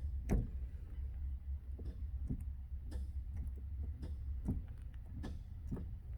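Scattered light knocks and clicks, about six at irregular intervals, from handling the loose driver's door of a 1937 MG TA, its hinges knocking with play. A steady low hum runs underneath.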